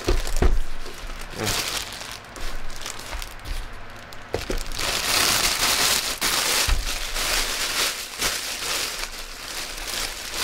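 Packaging crinkling and rustling as items are handled, with a few knocks in between; the crinkling is densest and loudest from about five to seven seconds in.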